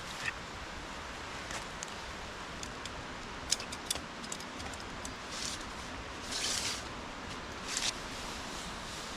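Steady rush of running water from the river and falls, with a few sharp clicks about three and a half seconds in and short rustles between five and eight seconds in.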